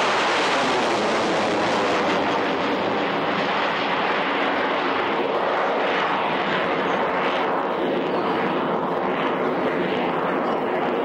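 Twin-engine jet fighter with its afterburners lit, a loud, steady jet rumble throughout. In the second half it takes on a wavering, swishing edge as the jet climbs and turns overhead.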